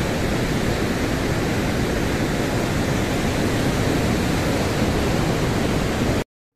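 Steady rushing noise of wind and rough, heavy surf, even and without a break, cutting off suddenly near the end.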